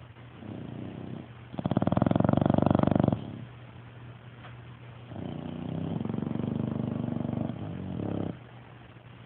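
Sleeping dogs snoring in separate breaths: a faint snore, then a loud fluttering one about two seconds in, and a longer one from about five seconds in.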